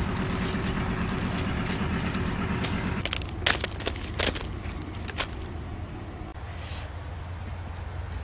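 A low motor drone fades out about three seconds in, followed by a few sharp clicks and snaps.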